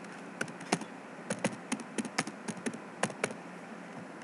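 Computer keyboard being typed on: a run of irregular key clicks that stops a little over three seconds in.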